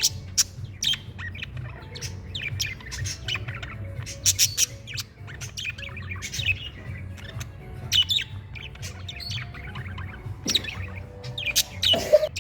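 Pet budgerigars chattering, a dense run of quick sharp calls with no pause.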